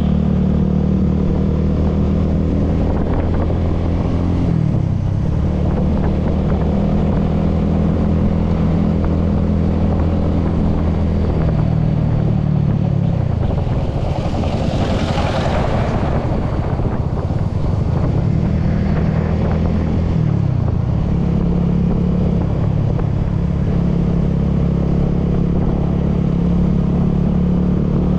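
Honda motor scooter engine running under way, heard from the rider's seat; its pitch drops and climbs back three times as the throttle is eased and reopened. A brief rush of hiss about halfway through.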